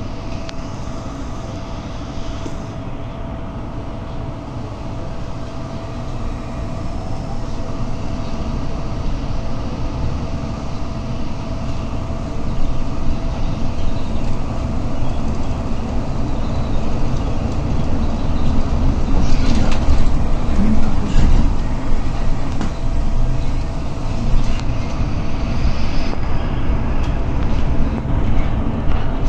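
Inside a new articulated city bus on the move: a steady engine and road rumble with a faint constant whine, getting louder about halfway through, with a few rattles a little later.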